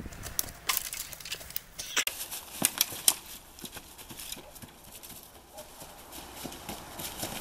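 Footsteps of people running through dry leaf litter and twigs: a quick, uneven run of crunches and snaps.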